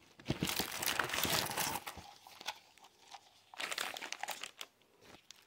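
Crinkling of plastic snack bags and candy wrappers being handled: a longer bout of rustling at the start, then a shorter one about three and a half seconds in.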